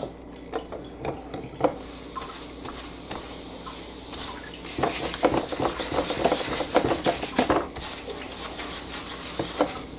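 Paper towel rubbed back and forth over the ridged nonstick plates of a George Foreman grill: a run of irregular scrubbing and scraping strokes over a steady hiss that sets in about two seconds in.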